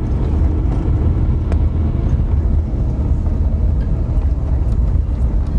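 Steady low rumble of a vehicle driving up a mountain road: engine and road noise.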